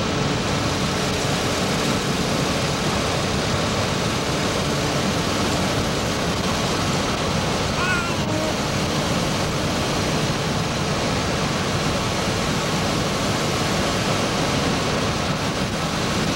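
Steady road and engine noise inside a moving car's cabin, a constant rushing hum with no changes.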